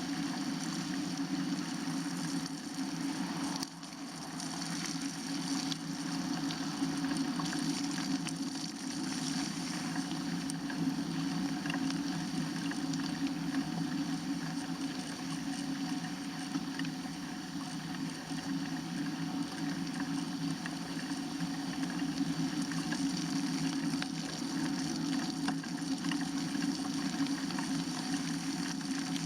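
Bicycle tyres rolling steadily over wet, slushy pavement.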